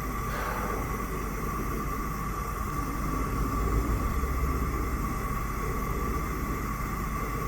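Lit gas stove burner, its flame giving a steady hiss over a low rumble that swells slightly around the middle.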